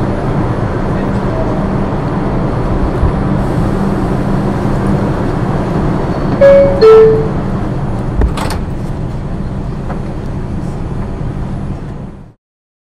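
New York City subway car rumbling steadily. About six and a half seconds in, a two-note falling chime sounds, the door-closing chime, followed by a knock a little after eight seconds. The sound cuts off suddenly near the end.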